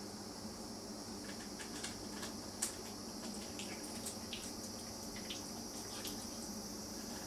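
Insects chirring steadily at a high pitch, with scattered soft clicks and one sharper tick about two and a half seconds in.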